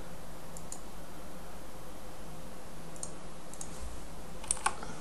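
Scattered light clicks and taps of small laptop parts and a screwdriver being handled during disassembly, the loudest pair near the end, over a steady faint hiss and hum.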